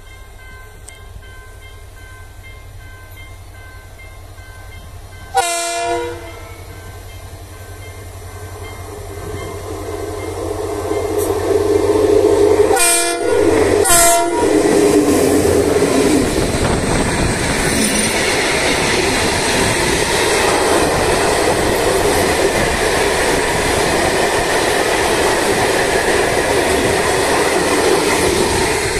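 TCDD DE 33066 diesel-electric locomotive hauling a freight train, its engine growing louder as it approaches. Its horn sounds one short blast about five seconds in, then two short blasts as it passes. After that the freight wagons roll by close with a steady, loud rolling noise.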